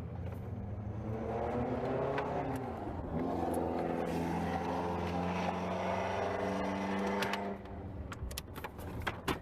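A motor vehicle engine running: it revs up over the first couple of seconds, holds a steady pitch, then stops or fades about three-quarters of the way through. A few sharp metallic clicks come near the end.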